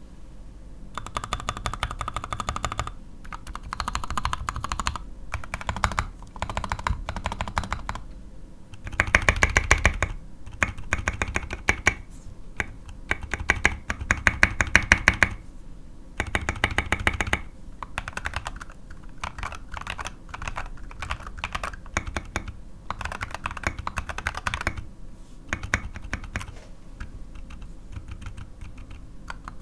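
Fast typing on a mechanical keyboard with unlubed C3Equalz Tangerine V2 linear switches and ABS SA-profile keycaps, in runs of rapid keystrokes broken by short pauses. The loudest runs come near the middle.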